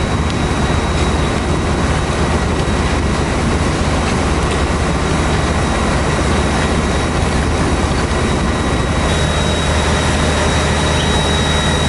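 Fire engine's diesel engine and water pump running steadily, a constant low drone with a broad hiss over it. A thin high whine joins about nine seconds in.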